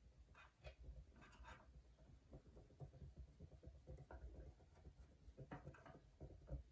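Faint, irregular small clicks and light scraping from hands working small screws and parts with a hand tool, fitting a backplate onto an RC starter box.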